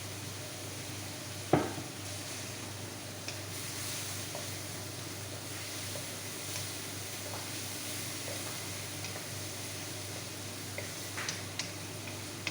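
Chicken, carrot and celery filling sizzling in a frying pan as it is stirred, with one sharp knock of the utensil against the pan about a second and a half in and a few light clicks near the end.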